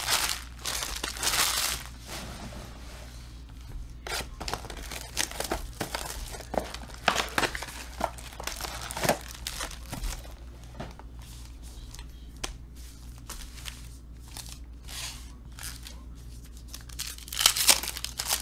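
Foil wrappers of Donruss Elite football card packs crinkling as they are handled, with scattered light clicks and rustles. Near the end a pack is torn open in a short run of loud crackles.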